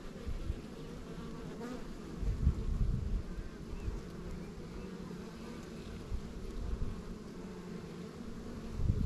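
A honeybee colony buzzing in a steady, pitched hum around an open hive. There are a few stronger low rumbles on the microphone about two to three seconds in.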